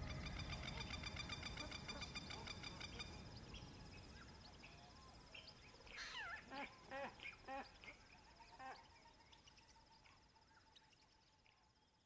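Dusk bush ambience fading out: insects trill steadily in a high, pulsing tone, and a short run of bird calls comes about halfway through.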